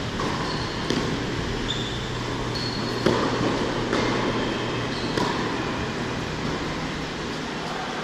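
Tennis rally on an indoor hard court: sharp racket-on-ball strikes about two seconds apart, the loudest about three seconds in, with short high squeaks of tennis shoes on the court between them. A steady low hum runs underneath, and the hitting stops after about five seconds.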